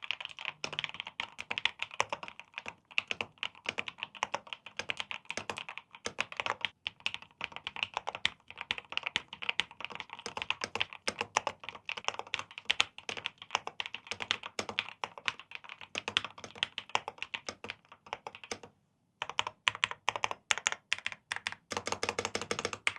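Fast, continuous typing on an Epomaker Glyph gasket-mounted mechanical keyboard: rapid key clacks with one brief pause a few seconds before the end.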